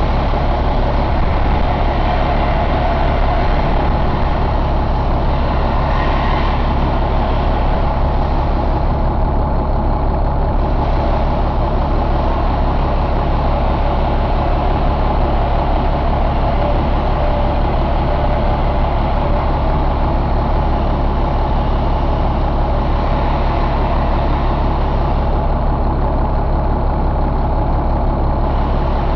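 1999 International DT466E inline-six turbodiesel engine idling steadily, heard close up at the open engine bay.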